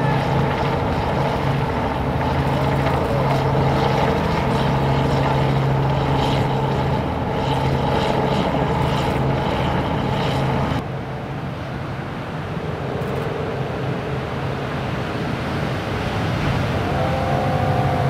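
Steady motor drone with a pitched hum over wind and surf noise. About eleven seconds in the sound cuts abruptly to a lower, rougher rushing noise with only a faint hum, and a brief gliding engine tone comes in near the end.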